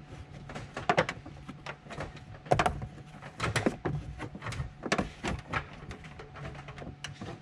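Handling noise as a red amplifier power wire is pulled through from under the rear seat into the trunk: irregular rustling, scraping and light knocks of the wire against the trim and seat.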